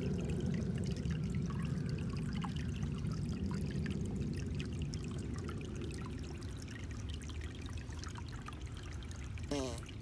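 Small shallow creek trickling over rocks and fallen leaves: a steady low rush of running water with small splashy trickles on top.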